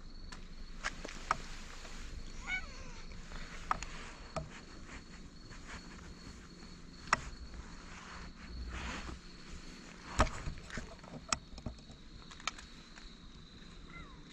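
Steady high-pitched insect trill, with scattered sharp clicks and scuffs of footsteps on pavement.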